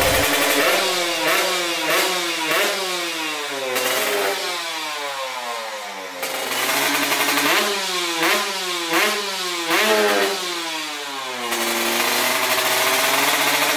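Kawasaki Ninja 150 RR's two-stroke single-cylinder engine revved in a series of quick throttle blips, each rising and falling in pitch, twice letting the revs die away slowly. It then settles into a steady idle for the last couple of seconds.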